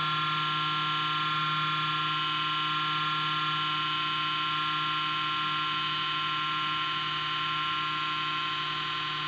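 Computer power-supply cooling fan humming loudly at power-on, a steady drone with several fixed whining tones above it. This noise comes only while the computer starts up and is a sign of a faulty fan bearing.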